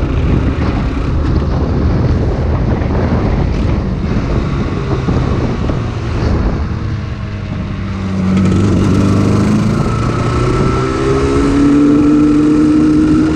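Yamaha RZ250's two-stroke parallel-twin engine running under way. About eight seconds in, the engine note climbs steadily in pitch as the bike accelerates.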